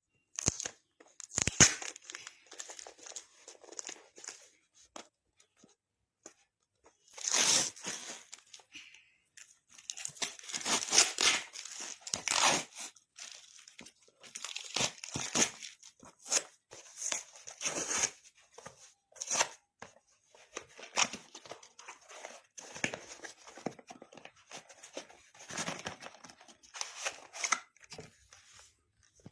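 Packaging being unwrapped and torn open by hand: irregular tearing, crinkling and rustling of plastic and paper, with a sharp knock about a second and a half in.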